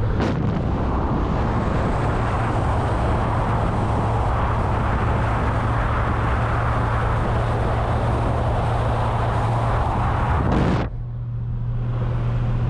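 Steady engine drone and road noise inside a moving vehicle. About eleven seconds in, the road hiss cuts off abruptly while a low engine hum carries on.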